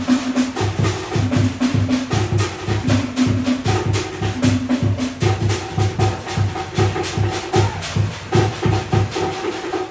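Percussion-led music with a fast, steady drum beat.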